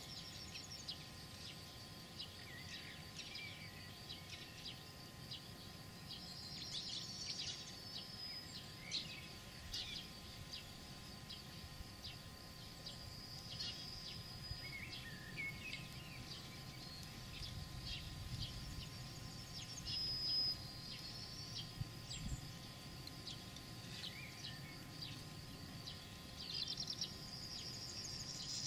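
Small birds chirping and singing on and off throughout, short high calls with a few longer trills, over a steady low background noise.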